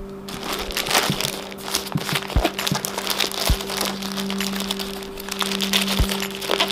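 Plastic courier mailer crinkling and crackling as it is handled and cut open with a small cutter, a string of short crinkles and snaps. Background music with sustained tones plays underneath.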